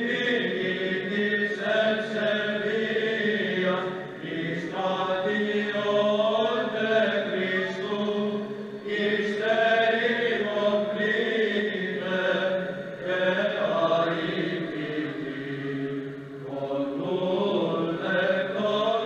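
Male choir of Byzantine chanters singing in unison over a steady low drone (the ison), the melody moving slowly in long phrases with a few brief breaks for breath.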